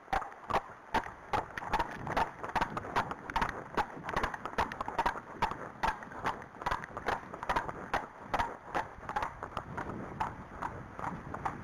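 Hooves of two horses, an Arabian and a Friesian, clattering on a tarmac lane at a trot: a quick, uneven run of hoofbeats, several a second.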